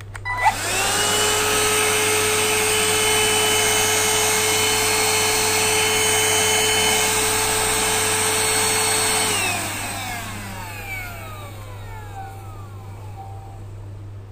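Khind VC9678 cordless handheld vacuum switched on with a click, its motor spinning up within a second to a steady whine. After about nine seconds the motor winds down with a falling whine.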